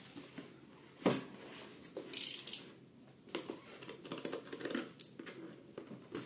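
Utility knife slitting packing tape on small cardboard boxes, with scratching, tapping and rustling of the cardboard as the boxes are handled. A short sharp hiss about two seconds in, then a run of scratchy cuts and taps.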